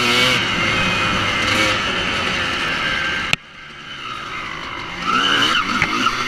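Honda CR250's 250cc single-cylinder two-stroke engine revving hard on a dirt track, pitch rising and falling through the gears. A little past halfway the sound cuts off suddenly with a click and drops away, then the engine builds back up and revs near the end.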